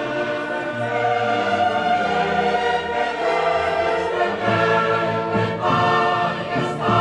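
Background music: a choir singing long, held notes with orchestral accompaniment.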